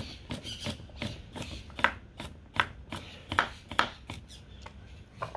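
Kitchen knife slicing whole carrots on a wooden cutting board: a run of short knocks as the blade hits the board, about two or three a second, thinning out after about four seconds.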